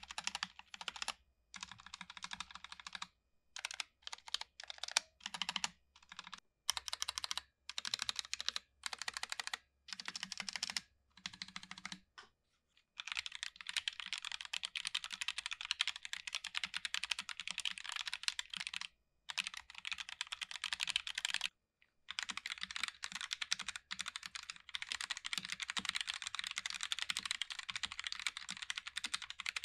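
Roccat Vulcan TKL keyboards being typed on: first short bursts of key clacks on the stabilized long keys, whose wire stabilizers rattle, then from about thirteen seconds in fast, continuous typing on the Vulcan TKL Pro's Titan optical switches and the Vulcan TKL's mechanical switches.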